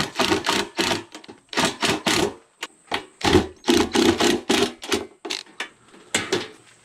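Cordless drill run in many short trigger bursts, driving screws through a metal killing cone's mounting flange into a wooden board.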